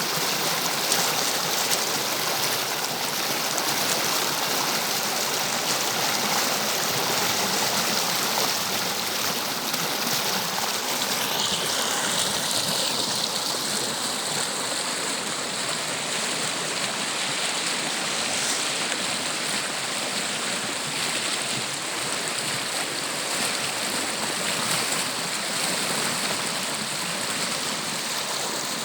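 Tibagi River flowing over rocks: a steady rushing and gurgling of running water, its tone shifting slightly about twelve seconds in.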